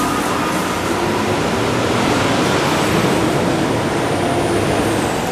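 Steady city street traffic noise, with a faint high whine rising near the end.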